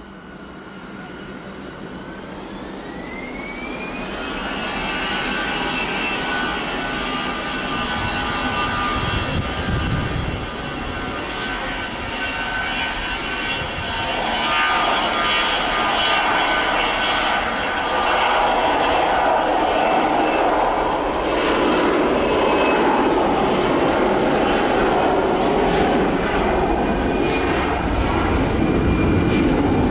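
Airbus A320 jet engines spooling up to takeoff power, with a whine rising in pitch over the first few seconds. Then the jet runs down the runway on its takeoff roll, growing steadily louder.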